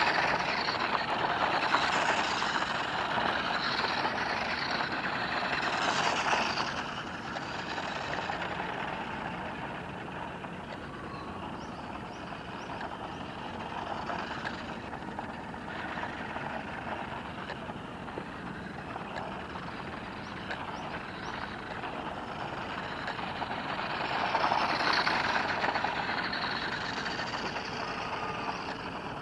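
WPL D12 radio-controlled kei truck's electric motor and gears whirring and its tyres crunching over gravel and pine needles as it drives away. Loudest for the first six seconds, fading in the distance, then louder again for a few seconds near the end as it comes back around.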